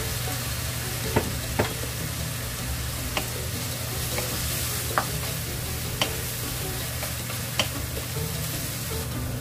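Strips of bellflower root (doraji) sizzling in sesame oil in a nonstick frying pan as a wooden spatula stirs them, with six sharp taps of the spatula against the pan.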